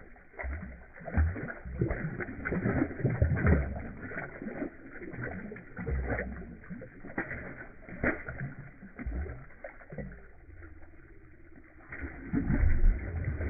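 Irregular knocks, rustling and water splashing as a hooked catfish is handled and taken off the line.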